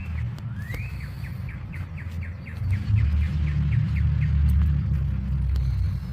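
A songbird singing: a couple of rising whistled notes, then a quick run of short falling notes, about five a second. Under it runs a low rumble that swells to its loudest in the middle and is louder than the bird.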